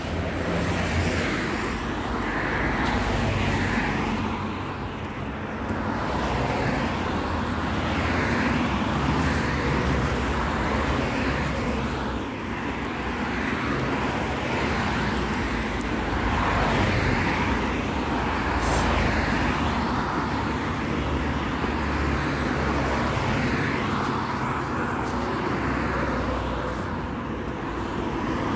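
Steady road traffic noise, cars passing one after another, the level swelling and easing every few seconds.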